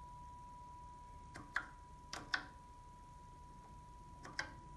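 Keys pressed on a Commodore PET 2001's keyboard, three keystrokes, each heard as a quick pair of sharp clicks, over a faint steady high tone.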